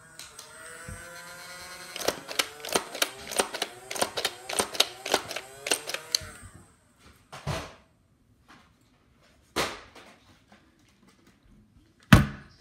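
A motorised flywheel Nerf blaster whines as its flywheels spin up, then fires a rapid full-auto stream of darts at about three to four shots a second, its pitch sagging a little with each shot. A few single thumps follow, the loudest one near the end.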